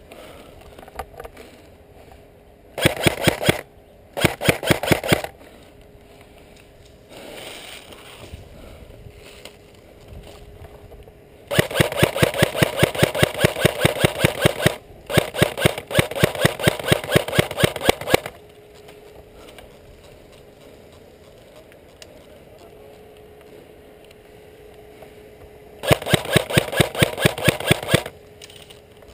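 Airsoft electric rifle (KWA G36C) firing bursts on full auto, a rapid clatter of shots. There are five bursts: two short ones a few seconds in, two long ones around the middle with a brief break between them, and a short one near the end.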